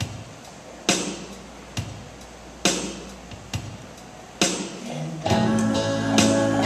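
Acoustic guitar played in single strummed chord strokes, loud ones a little under two seconds apart with softer ones between, each left to ring. About five seconds in, an electric keyboard comes in with held chords and the music gets louder and fuller.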